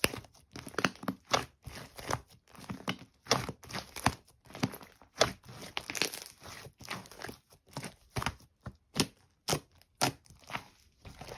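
Sand being handled in a sand-play ASMR: repeated crunching and crumbling, about one to two crunches a second at an uneven pace.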